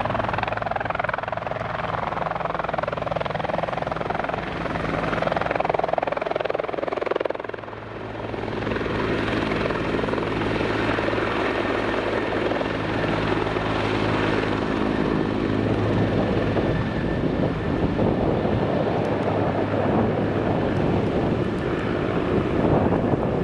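Bell CH-146 Griffon search-and-rescue helicopter taking off and climbing away: steady sound of its rotor and turbine engines, briefly quieter about eight seconds in.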